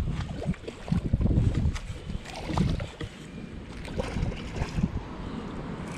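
Water splashing and sloshing from a hooked fish fighting at the surface, with wind buffeting the microphone and irregular low thumps.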